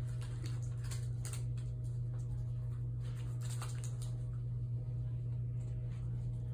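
A steady low electrical or ventilation hum with a faint steady higher tone, overlaid by a scatter of light clicks and rustles for the first four seconds or so.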